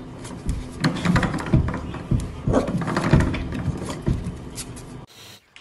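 A corgi puppy playing on a hardwood floor: repeated light taps and scrabbling, mixed with short yappy or laughing voice sounds. It breaks off in a brief hiss about five seconds in.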